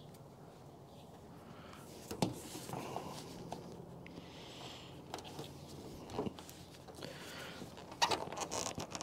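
Faint handling noises from parts being fitted by hand: scattered light clicks and rustles starting about two seconds in, getting busier and louder near the end.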